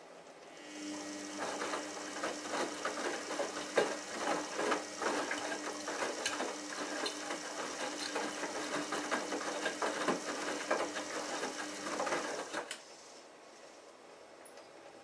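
Samsung Ecobubble WF1804WPU front-loading washing machine turning its drum during the prewash: the motor hums a steady tone while the laundry tumbles with many soft knocks, for about twelve seconds. The drum then stops suddenly.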